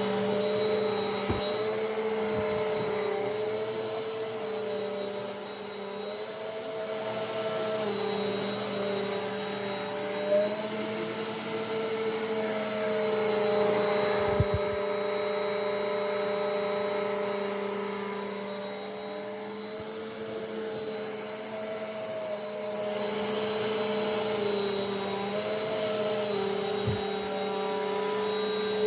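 Eureka AirSpeed NEU100 upright vacuum cleaner running, a steady motor hum and whine whose pitch dips and recovers slightly every few seconds, with a few light knocks.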